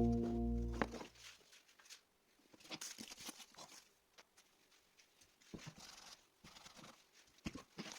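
Background music fading out about a second in, followed by faint scattered clicks and rustles.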